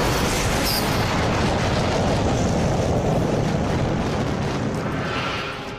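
Cartoon sound effect of a huge explosion: a loud, sustained blast noise with a deep rumble that fades near the end.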